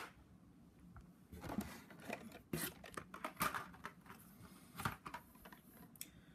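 Blister-carded toy cars being handled: intermittent plastic-and-cardboard rustling and clicking as packages are picked up and set down.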